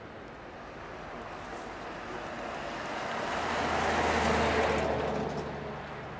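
A motor vehicle passing by: a low engine hum and rushing noise swell to their loudest about four seconds in, then fade away.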